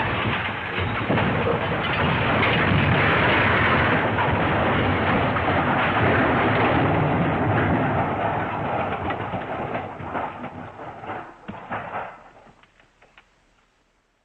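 Sound-effect crash: a loud, dense din of crashing and clattering that holds for about eight seconds, then thins into scattered knocks and clatters and dies away near the end.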